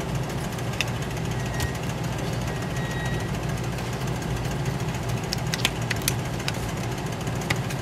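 A coin scraping the coating off a lottery scratch-off ticket on a counter, over a steady low hum, with a few sharp clicks, several of them a little past halfway.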